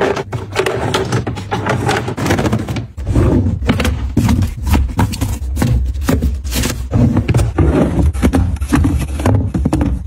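Close-up handling sounds of food going into plastic refrigerator compartments: a quick run of knocks, taps and rustles as eggs are set into an egg tray, then vegetables are packed into a crisper drawer. A low steady hum runs underneath from about three seconds in.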